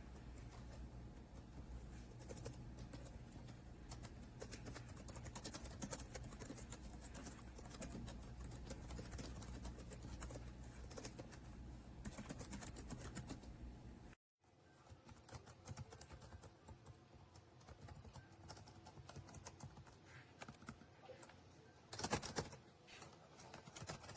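Faint, rapid, irregular key clicks of typing on a wireless ergonomic split keyboard. The sound drops out briefly about halfway through, then the typing resumes, with a louder cluster of keystrokes near the end.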